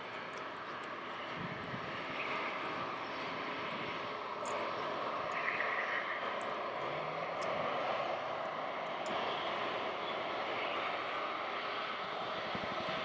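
Airliner engines at an airport: a steady rushing noise that grows a little louder after the first few seconds and then holds.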